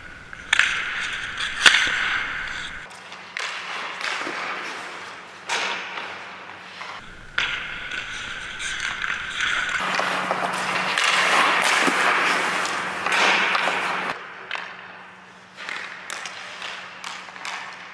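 Hockey stick blades slapping pucks in a shooting drill: sharp cracks every few seconds, with rink echo. Between them, skate blades scrape and hiss on the ice, loudest about halfway through.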